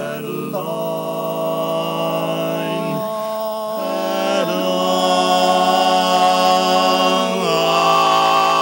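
Barbershop quartet singing a cappella: four men's voices holding sustained close-harmony chords that shift together several times, growing louder from about halfway through.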